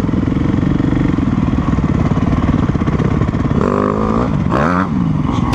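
Husqvarna dirt bike engine running hard, with the revs rising and falling a few times past the middle.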